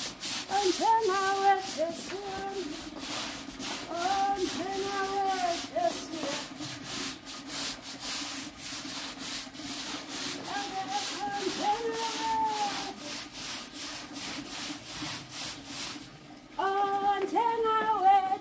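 Rhythmic scratchy strokes across the ground, about three a second, as the yard is swept, stopping about 16 seconds in. A woman hums a tune over them in phrases.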